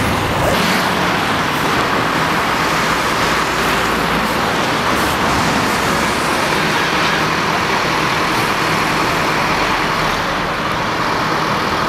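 Steady motorway traffic noise: cars passing on wet asphalt, their tyre noise on the wet road surface.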